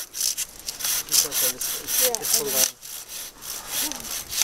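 Hand pruning saw cutting back and forth through a birch branch under tension, in quick, evenly repeated rasping strokes.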